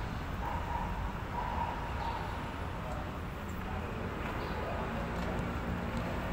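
Steady outdoor background noise with a low rumble and faint, distant voices from players on the pitch.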